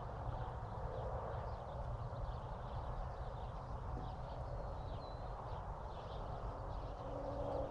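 Steady low background rumble with faint, scattered bird chirps.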